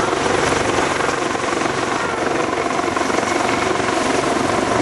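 Helicopter rotor and engine noise, steady throughout.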